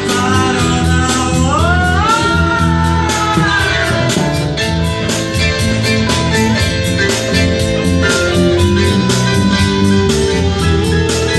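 Band music with guitar over a steady beat; about a second and a half in, a high melodic line slides up in pitch.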